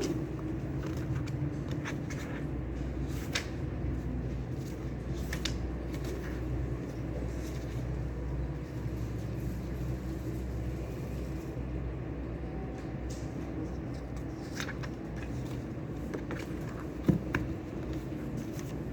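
Steady low room hum with scattered light clicks and taps from small handling sounds, and one sharper knock near the end.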